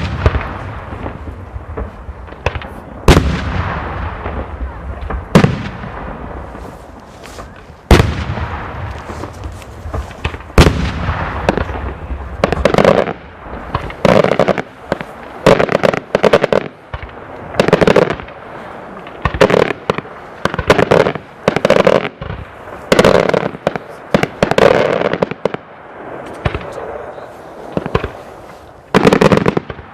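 Daylight fireworks: single loud aerial shell bursts, each followed by a long echoing rumble. About twelve seconds in they give way to rapid clusters of bangs that repeat every second or so.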